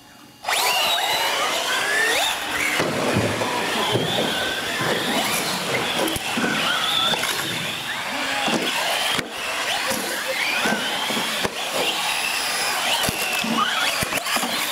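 Several small electric radio-controlled UTVs racing on a concrete floor: high motor whines that waver up and down in pitch as they speed up and slow for the turns, with tyres squealing and the odd knock. It starts suddenly about half a second in.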